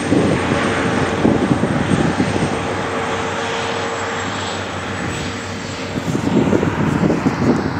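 Vehicle engines driving by on a road: a steady loud drone with a high whine that stops about six seconds in.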